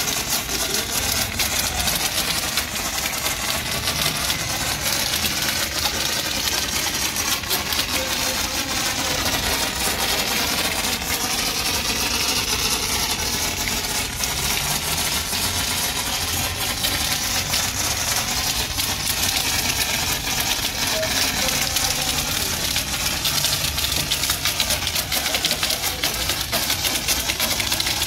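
Car-wash foam spraying steadily from a hand-held nozzle onto the car's body, a continuous hiss over a machine motor running steadily underneath.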